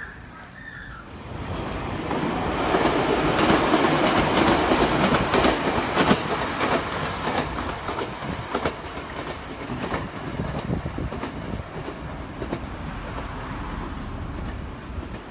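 Chichibu line electric train passing close by with repeated wheel clicks over the rail joints. It swells to its loudest a couple of seconds in, then fades as the train runs off into the distance.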